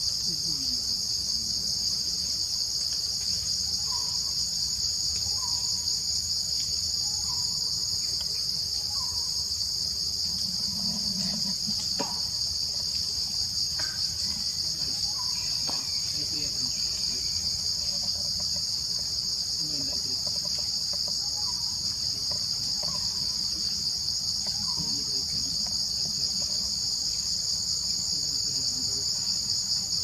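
Dense, steady high-pitched insect chorus that drones on without a break, with a few faint short calls underneath.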